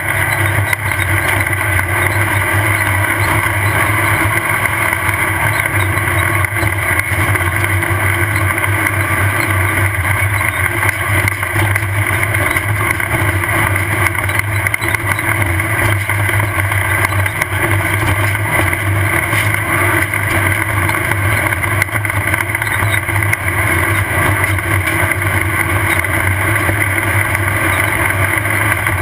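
Off-road race car's engine running hard and steadily, heard from on board. A constant jittery rattle and rumble comes from the car pounding over rough terrain.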